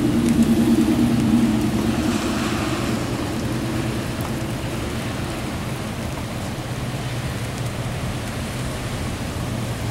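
Steady rain falling during a thunderstorm, with a low rumble that is strongest in the first couple of seconds and then eases off.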